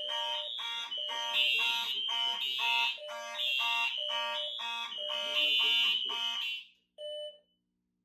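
Fire alarm notification appliances on a Simplex 4120 network demo system sounding together in a fast, repeating pulsed evacuation signal. They cut off all at once about six and a half seconds in, followed by one short beep.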